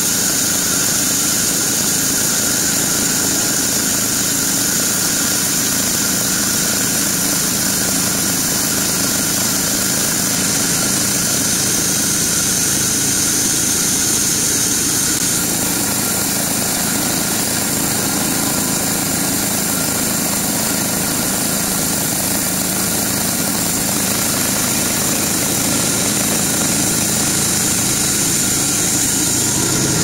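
Band sawmill running steadily, its band blade cutting lengthwise through a squared block of wet teak, a constant machine drone with a high whine.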